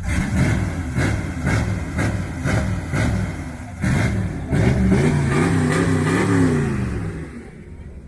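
Classic car engine being revved in short blips about twice a second, then held up for a couple of seconds with its pitch wavering before it drops back near the end.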